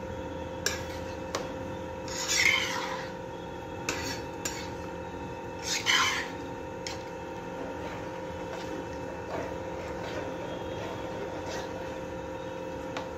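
Kitchen pot and utensil sounds: two brief scraping swishes about three and a half seconds apart and a few light clicks, over a steady hum.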